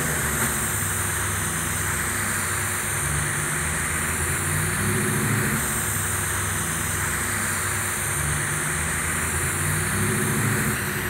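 TIG welding arc on Monel 400 pipe running steadily at about 120 amps on a hot pass: an even hiss over a low hum.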